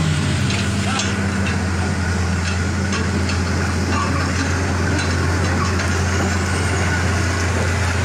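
Vehicle engine running with a steady, unchanging low hum, mixed with rough noise and scattered clicks as a pickup truck churns through deep mud.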